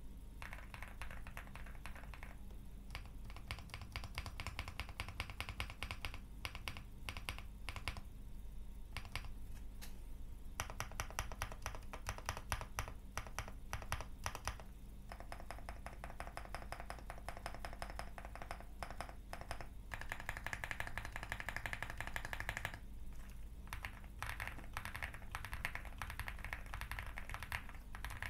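Fast typing on a custom mechanical keyboard, an all-aluminium Aula Hi75 fitted with TTC Superman linear switches and Cherry-profile keycaps. The keystrokes come in quick runs, broken by a few short pauses.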